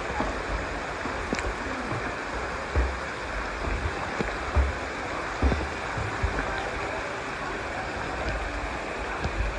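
Rushing water, a steady hiss, with scattered low thumps on the microphone.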